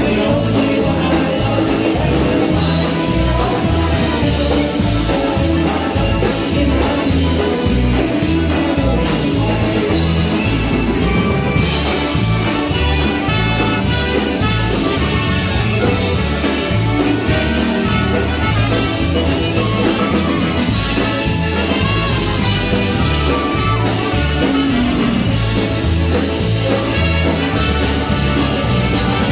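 Live polka band playing a polka with concertinas, trumpet, saxophone, clarinet, electric bass and drum kit over a steady beat.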